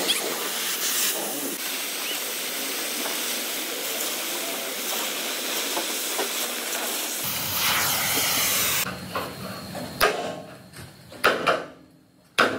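Oxy-fuel cutting torch hissing steadily as it cuts through thick steel plate. After about nine seconds it gives way to three sledgehammer blows on the steel plate, each ringing briefly.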